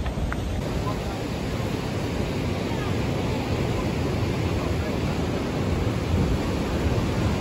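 Steady rush of ocean surf breaking against a rock shelf and pool wall, mixed with wind on the microphone.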